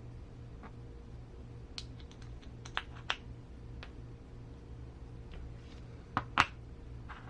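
Small RC gearbox parts, spacers and gears, being handled and set down on a work surface: scattered light clicks and taps, with two sharper knocks about six seconds in. A steady low hum runs underneath.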